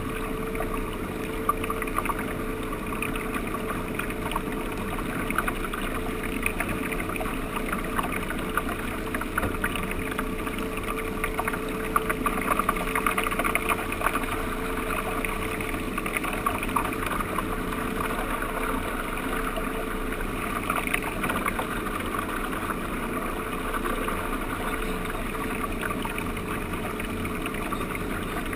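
A 16-foot Sea Ray center-console motorboat running at speed: water rushing and splashing along the hull. Under the water noise there is a steady drone from its 175 hp motor.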